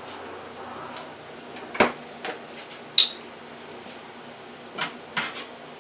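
Knocks and clicks of kitchen things being handled while milk and a metal measuring cup are fetched: a thud just under two seconds in, a sharp ringing clink at about three seconds, and two softer knocks near the end.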